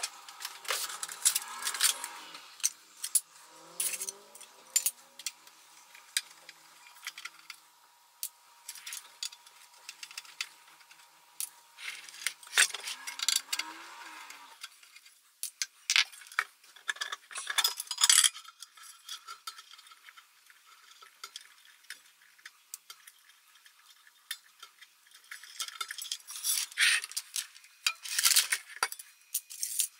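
Scattered metallic clicks and clinks as screws are backed out of a rain lamp's metal canopy with a screwdriver and the small metal parts are handled. A faint steady whine runs under it and stops about halfway through.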